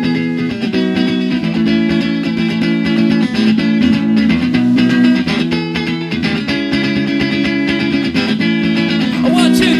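Guitar music: a strummed, plucked-string tune with a steady rhythm.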